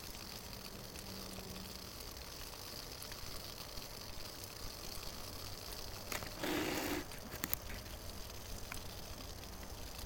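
Faint steady hiss of a Fancee Feest alcohol stove burning isopropyl alcohol under a pot of boiling water. About six and a half seconds in there is a brief louder noise lasting about half a second, with a few small clicks around it.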